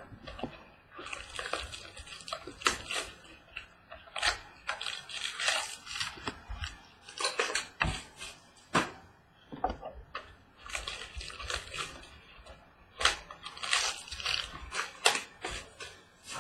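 Crinkling plastic wrapper and rustling cardboard as a box of trading-card packs is opened and handled, with irregular sharp clicks and snaps.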